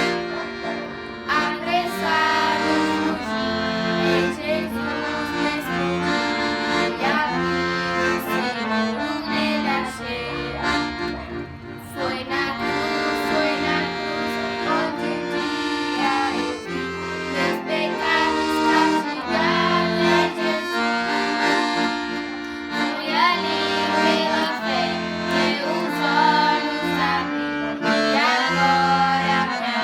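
Accordion (sanfona) playing a worship tune: a moving melody over held chords and bass notes.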